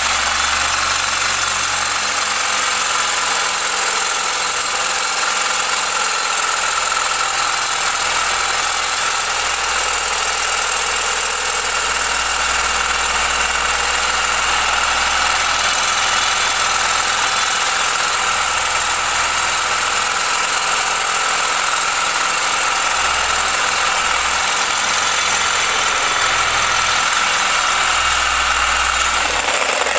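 Reciprocating saw cutting steadily through a rusted, seized steel U-bolt on a Ford F450 leaf spring, with a continuous high-pitched metal-cutting rasp. The bolt is under heavy spring tension.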